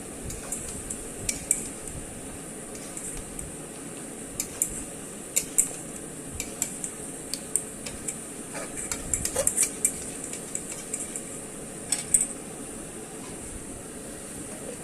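A metal utensil scraping and clinking against a cooking pot as chicken in masala is stirred and mixed, in irregular sharp clinks over a steady hiss.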